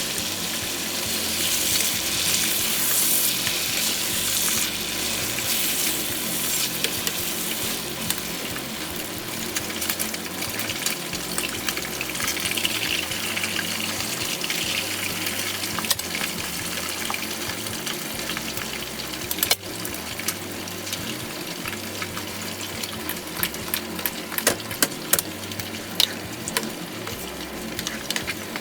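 Food sizzling and frying in a pan, a steady hiss, with sharp clicks from a utensil against the pan growing more frequent near the end.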